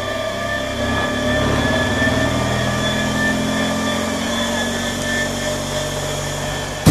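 Garbage truck engine idling steadily, with a few steady high tones over it.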